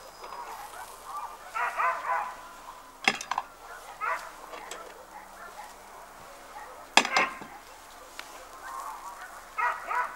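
Short animal calls, twice, with two sharp clicks or knocks between them.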